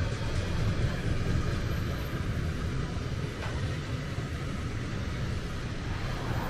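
Steady low rumble of a train running past on the track, easing off slightly, with a single faint click about three and a half seconds in.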